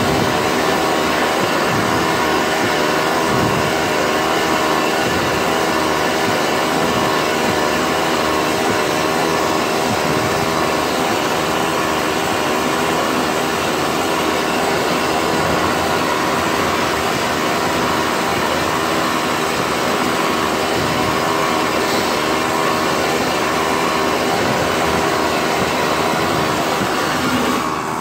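Vapor honing cabinet running, its blast gun spraying a water-and-media slurry with compressed air onto a metal part: a loud, steady rush with a slightly wavering hum beneath it.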